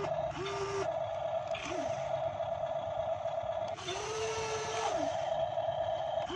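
Small electric motors of an RC model Kobelco SK200 excavator whining as it crawls up a muddy bank: a steady whine from the track drive, with shorter whines that rise, hold and drop away as the arm motors start and stop, one longer one about four seconds in.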